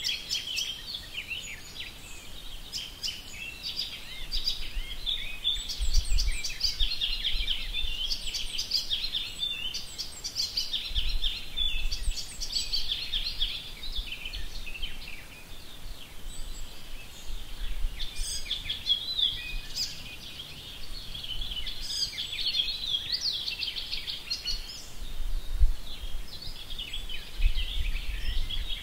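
Outdoor birdsong: several small birds chirping and trilling continuously and overlapping, with a low rumble now and then underneath.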